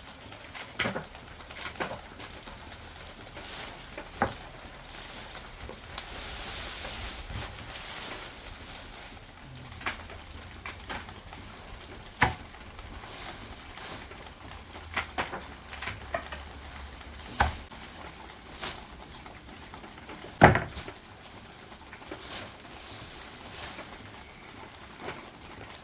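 Scattered knocks and clicks of objects being handled and set down, over a steady soft hiss; one sharp knock about twenty seconds in is the loudest.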